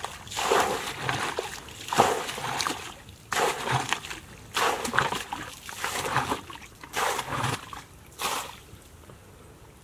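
Muddy water scooped up in a plastic bucket and tipped out, a splash about every second, stopping near the end: a shallow pool being bailed out.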